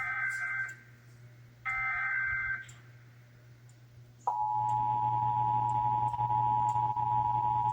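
Emergency Alert System tones: two short buzzing bursts of the digital SAME header, about a second each with a gap between them. At about four seconds in, the steady two-tone attention signal (853 and 960 Hz) begins and holds without a break, marking the start of a required monthly test.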